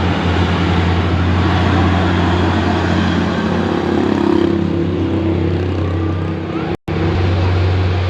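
Heavy truck's diesel engine labouring steadily on a steep uphill climb, a constant low drone. The sound drops out for an instant just before the end, then carries on.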